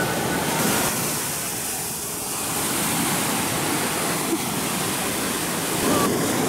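Small sea waves breaking and washing up the sand at the shoreline: a steady noise of surf that swells about a second in and again near the end.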